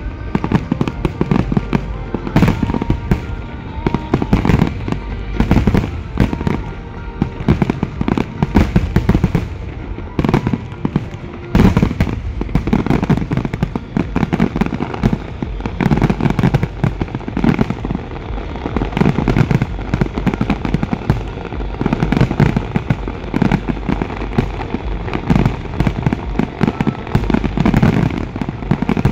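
Large aerial fireworks display: many shells bursting in rapid, near-continuous bangs and crackles, with heavy booms low down.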